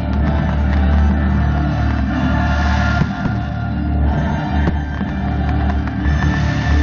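Loud music with sustained tones over a heavy bass.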